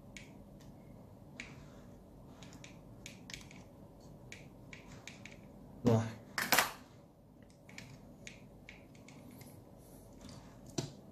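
Small plastic clicks and taps from the parts of a Weijiang W8606 Thunder Leader (Optimus Prime) transforming figure being handled and folded, with one louder brief sound about six seconds in and a sharper click near the end.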